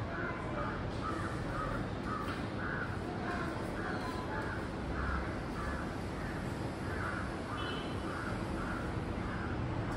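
Crows cawing in a long run of short, evenly spaced calls, about two or three a second, with a brief pause midway, over a steady background noise.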